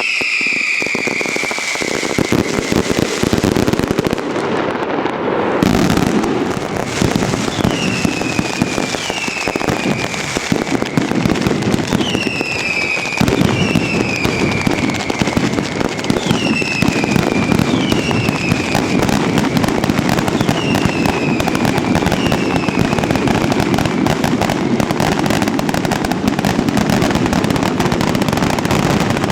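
Fireworks going off in a dense, continuous barrage of crackling and popping, with a string of short whistles, each falling in pitch, about every second and a half through the middle.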